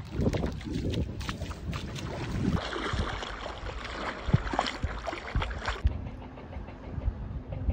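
Small waves washing and lapping over sand in the shallows, with wind rumbling on the microphone.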